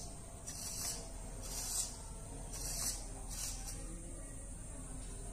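Micro servos on a homemade RC nose landing gear whirring in four short bursts, each under a second, as the gear is moved from the transmitter.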